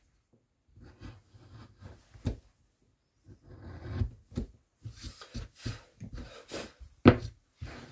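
Semicircular carving gouge cutting into wood by hand: a string of short, irregular scraping cuts and small knocks, with one sharper knock about seven seconds in.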